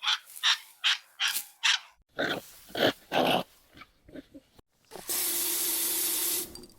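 A dog making a run of short, quick breathy sounds, about two or three a second, followed near the end by about a second and a half of steady hiss.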